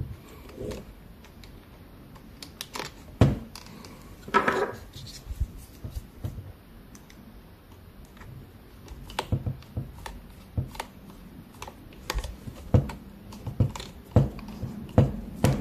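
Scattered clicks and light knocks of small tools and parts being handled on a workbench, with a short scraping rustle about four seconds in.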